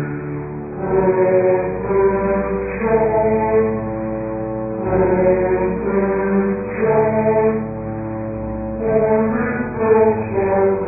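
Chant-like singing in long held notes and short phrases over a steady low drone, the voice rising and falling in pitch between swells.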